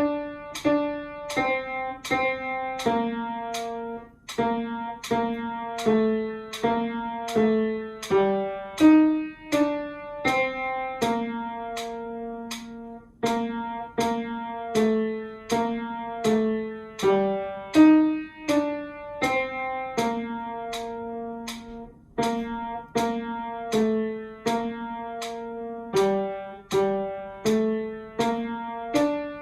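Keyboard playing the choir parts of a hymn in slow chords, each note struck and dying away, about two notes a second in a steady pulse.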